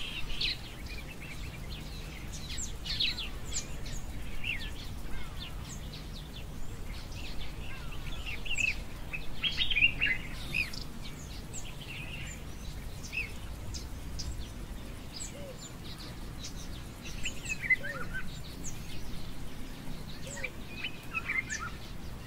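Several birds chirping and calling: many short, quick high calls scattered throughout, with a few lower calls in the second half. A steady low rumble runs underneath.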